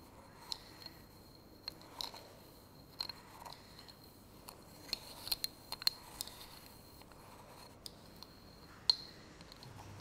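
A metal teaspoon digging into sugar in a small glass jar: scraping through the granules, with irregular sharp clinks of the spoon against the glass, a cluster of them midway and the loudest near the end.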